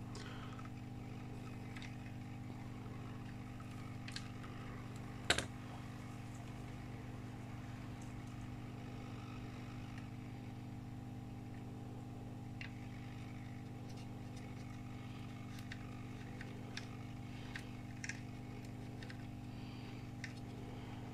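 Steady low hum of running bench equipment, with scattered faint clicks and taps from soldering work on a laptop motherboard; one sharper click about five seconds in.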